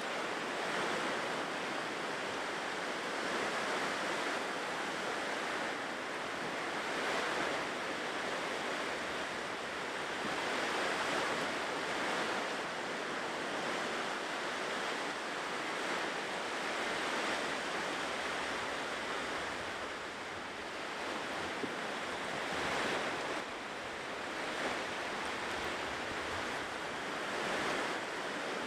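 Ocean surf washing onto a shore, a continuous rush that swells and eases every few seconds as waves break.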